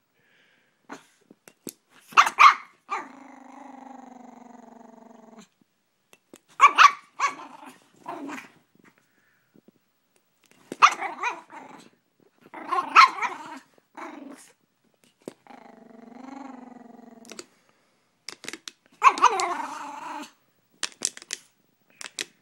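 Brussels Griffon, a small dog, giving short sharp barks at intervals, with two long, low, steady growls of about two seconds each, one early on and one past the middle. She is protesting at a water bottle she dislikes.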